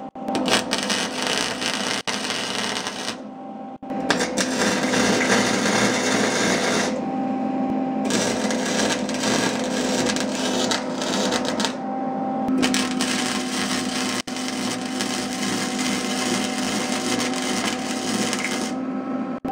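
Arc welder laying beads on a steel exhaust pipe: the arc gives a steady crackle that stops for a few short pauses between welds, with a low steady hum underneath.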